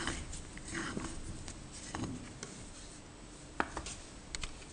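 Hands twisting and handling the steel barrel and lock nut of a Myford lathe tailstock: rubbing, scraping sounds, then a few sharp light clicks near the end as the metal parts knock together.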